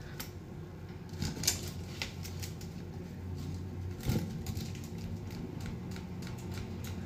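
Folding hand fan being spread open and handled, its ribs giving a series of light clicks and rustles, with a soft thump about four seconds in.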